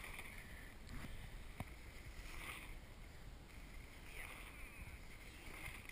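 Faint sound of mountain bikes rolling past on a dirt singletrack, over a low, even rumble, with a single short tick about a second and a half in.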